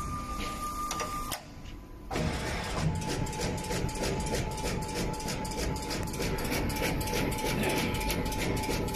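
Radial component insertion machine running, its insertion head and component feed clattering in rapid, even clicks, several a second, over a steady whine. A steady high tone sounds for about the first second before the clatter starts about two seconds in.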